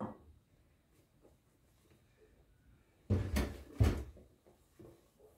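A glass mixing bowl set down in a stainless steel sink: two clattering knocks about three seconds in. A silicone spatula scrapes quietly in a bowl around them.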